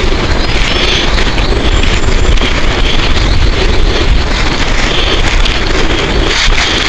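Wind buffeting the microphone: a loud, steady rumbling noise with no clear calls or tones.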